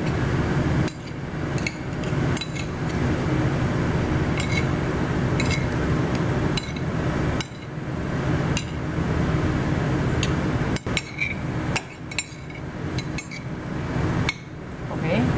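A metal spoon scraping and clinking against a ceramic plate while mixing sliced raw beef in a wet soy-and-cornstarch marinade, with a sharp clink about once a second over a steady hum.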